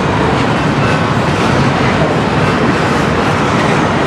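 Double-stack intermodal container well cars rolling past at track speed: a loud, steady rumble and rattle of steel wheels on the rails.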